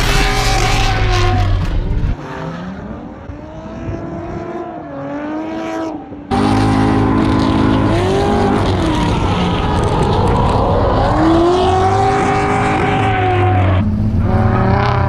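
Corvette Z06 V8 engine revving up and down hard while drifting on track. The sound drops to a quieter stretch at about 2 seconds, then cuts sharply back to full loudness at about 6 seconds.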